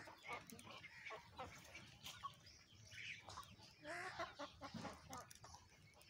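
Chickens clucking, with short calls scattered through and the clearest ones around three and four seconds in.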